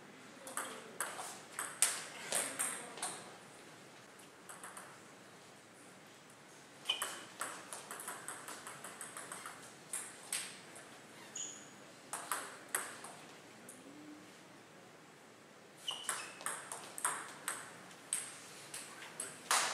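Table tennis ball clicking off the bats and the table in short rallies, with a run of quick, evenly spaced bounces in the middle. A few short high squeaks sound between strokes.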